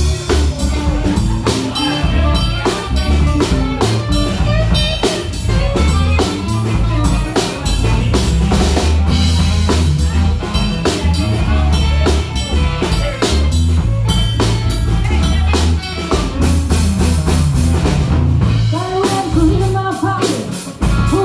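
Live blues-rock band playing an instrumental passage: drum kit keeping a steady beat, electric bass and electric guitar. A woman's singing comes in near the end.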